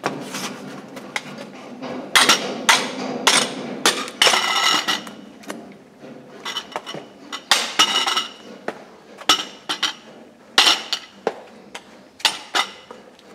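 Handling noise of a camera being fitted onto a metal tripod: a string of irregular metallic clicks, knocks and clinks, some ringing briefly.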